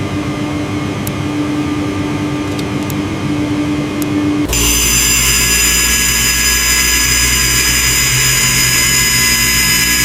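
Metalworking in a workshop: a machine running with a steady hum and a few sharp clicks, then, about four and a half seconds in, a loud high-pitched power-tool whine with hiss that cuts in suddenly and holds steady.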